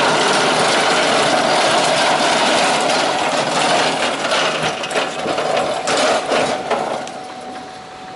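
Ramco RS100P metal-cutting bandsaw being rolled on its casters over rough pavement: a loud continuous rumble and rattle of the wheels and steel stand, with many small knocks over the cracks. It gets quieter about seven seconds in as it rolls onto the smooth shop floor.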